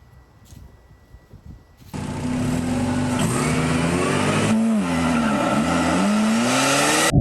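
Car engine revving, starting suddenly about two seconds in: the pitch holds high, then drops and climbs back twice in the middle and rises again near the end.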